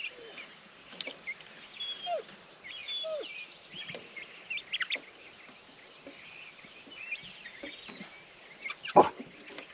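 Young chickens peeping and chirping, a scattered stream of short high calls with a few lower ones, and one sharp knock near the end.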